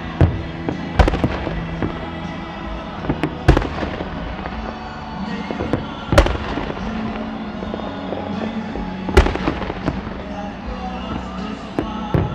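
Aerial firework shells bursting with sharp bangs, a big one about every three seconds and smaller pops between, over music playing underneath.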